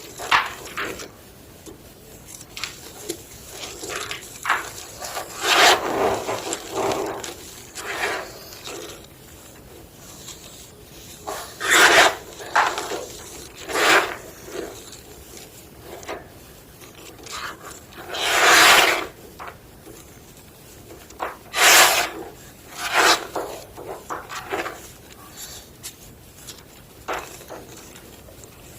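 Homemade gym chalk block being crushed, with irregular crunching and crumbling. Scattered short crunches are interrupted by several louder ones, including one longer crunch lasting about a second around two-thirds of the way through.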